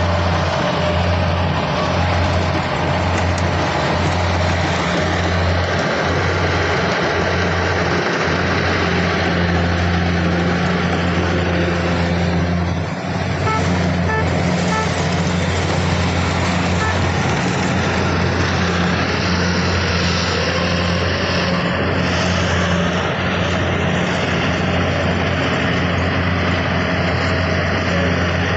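Kubota DC104 combine harvester running steadily, its engine drone holding even throughout.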